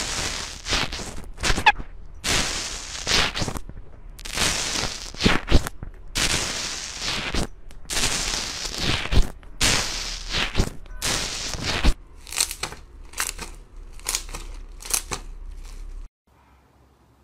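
Crunchy, granular slime being pressed, poked and kneaded by hand, giving repeated bursts of dense crackling and popping, each about half a second to a second long. Near the end the bursts become shorter and quicker, then stop abruptly.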